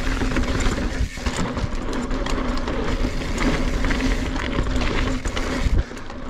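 NS Bikes Synonym full-suspension mountain bike ridden fast down rocky dirt singletrack: wind rushing on the camera microphone over the rumble of tyres on dirt and rock, with many small clacks and rattles as the bike hits stones and roots. The rush drops off briefly about a second in and again near the end.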